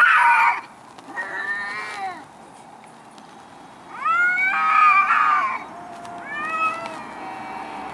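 Two cats yowling at each other in a fight: a harsh screech right at the start, then drawn-out wails that rise and fall in pitch, with a quiet gap in the middle and the longest, loudest wail about four seconds in.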